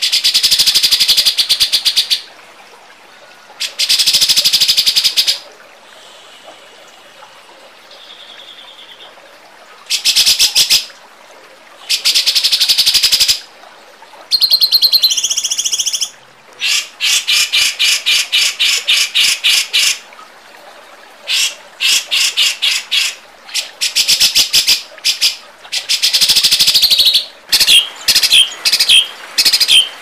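Songbird masteran (training) recording of harsh, rapid-fire 'tembakan' song: loud bursts, a second or two long, of fast high trilled notes, separated by short pauses. From the middle on, the notes come as runs of separate quick chips.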